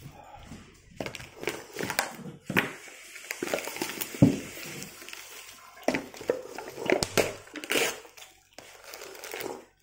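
A person eating a bowl of noodle soup at close range: chewing and mouth noises with scattered small clicks and knocks, one sharper knock about four seconds in.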